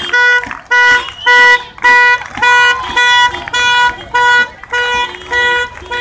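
A horn honking in a steady rhythm, about two short blasts a second, all at the same pitch, with a second, lower-pitched horn joining briefly about five seconds in.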